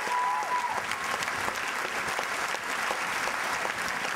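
Large audience applauding steadily, a dense patter of many hands clapping, with a brief cheer in the first second.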